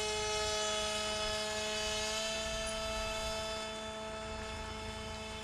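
Radio-control rescue boat's electric motor running at speed: a steady whine of several pitches that slowly fades as the boat moves away.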